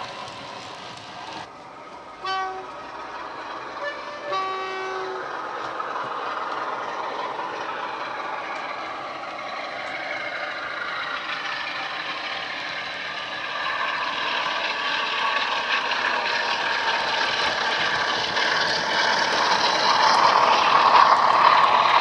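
Class 47/4 diesel locomotive sound (the Sulzer-engined Class 47) played by a DCC sound decoder through the model's two small megabass speakers. The two-tone horn gives a short blast about two seconds in, then a high note and a longer low note around four seconds; after that the engine runs steadily, growing louder as the train nears.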